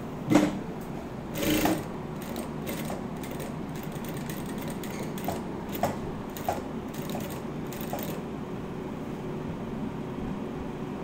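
Direct-drive single-needle lockstitch industrial sewing machine stitching fabric: a couple of louder knocks in the first two seconds, then a run of light clicks that stops about eight seconds in, over a steady low hum.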